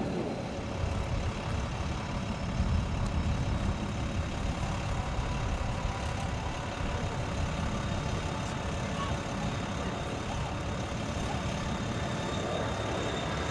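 Kawasaki T-4 jet trainer's twin turbofan engines running at low power as it rolls along the runway after landing: a steady rumble with a faint high whine.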